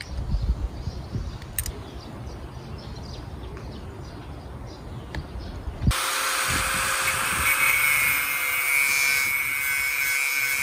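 A low rumble for the first six seconds. Then an angle grinder with a thin cut-off disc starts abruptly, cutting into a metal strap with a loud, steady high hiss and whine.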